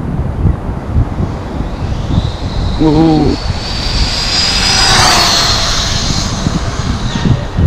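Arrma Typhon V4 RC car speeding past at full throttle on 6S with a 24-tooth pinion, its brushless motor and drivetrain making a high whine. The whine rises as the car approaches, is loudest about five seconds in, then drops in pitch and fades as it speeds away. It runs at about 71 mph.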